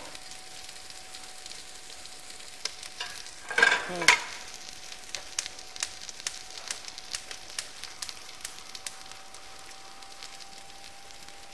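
Sliced onions sizzling and crackling as they brown in a stainless pressure-cooker pot. There is a short louder clatter about four seconds in.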